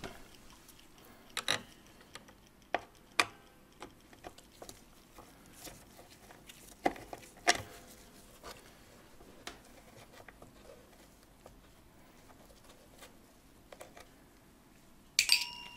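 Scattered small clicks and taps of a screwdriver and gloved hands working loose a steel screw that holds a clock movement in its wooden case. Near the end a screw is dropped into a metal dish with a short clatter and ringing.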